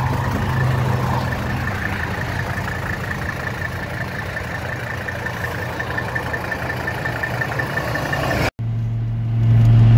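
Mercedes 300TD's five-cylinder turbo-diesel idling with a fine, even ticking, mixed with passing highway traffic and wind. About a second and a half before the end it cuts sharply to a steady low engine drone heard from inside the car while driving.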